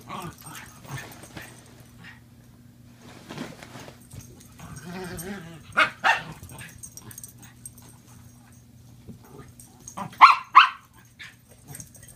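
Small dogs barking in play: two sharp barks in quick succession about six seconds in and two more near the end, with quieter dog sounds between.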